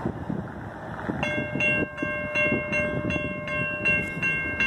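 Safetran Type 3 electronic crossing bell (E-Bell) starts ringing about a second in, a rapid, even ding repeating about two to three times a second as the crossing activates for an approaching train.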